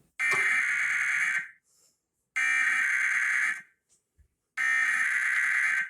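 Emergency Alert System SAME data bursts: three harsh, buzzing bursts of digital data tones, each just over a second long and about a second apart. Bursts this long are the coded header that opens an EAS alert.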